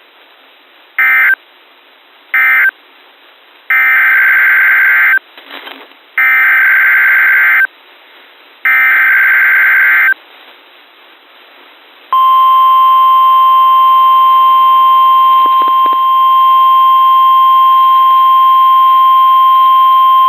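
NOAA Weather Radio Emergency Alert System tones: short bursts of SAME digital data tones, then three longer data bursts of about a second and a half each. About twelve seconds in, the steady 1050 Hz warning alarm tone begins, the signal that an alert message follows.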